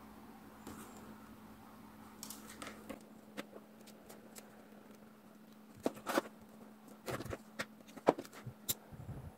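Small PVC plastic pieces handled and set down on a cutting mat: scattered light clicks and taps, with a few sharper ones in the second half, over a steady low hum.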